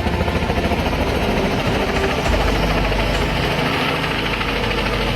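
A steady mechanical drone with a fast, low throb.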